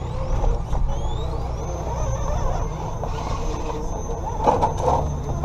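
Redcat Gen7 Pro RC rock crawler's electric motor and geared drivetrain whining, the whine rising in pitch over the first second and a half as it speeds up. A quick cluster of knocks comes about four and a half seconds in.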